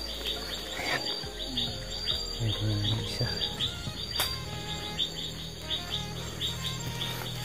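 Night insects calling: crickets chirping in a steady rhythm, about three short chirps a second, over a continuous high-pitched insect trill.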